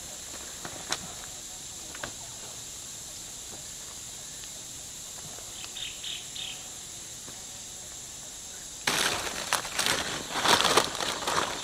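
Steady high drone of forest insects, with a few short high chirps about six seconds in. From about nine seconds, loud rustling and crunching of leaves and undergrowth as someone moves through the vegetation.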